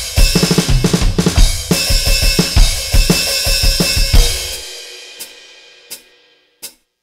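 Donner DED-200 electronic drum kit played through its sound module: a fast groove of kick, snare and hi-hat with cymbal crashes. The playing stops about four seconds in on a cymbal that rings out and fades, and a few faint taps follow.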